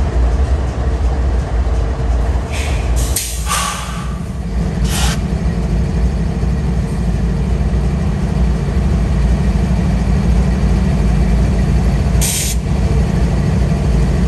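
CSX diesel freight locomotives rolling slowly past with a steady low engine rumble and hum. There are three or four short, sharp hisses of air release, about 3, 5 and 12 seconds in.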